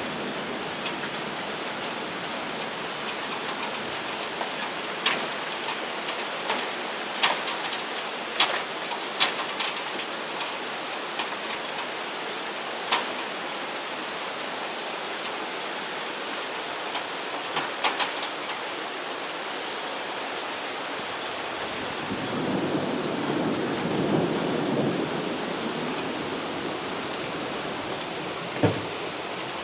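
Steady rain hiss of a thunderstorm downpour, with sharp drop taps close by scattered through the first half. A low rumble of thunder swells about two-thirds of the way through and fades, followed by a single short thump near the end.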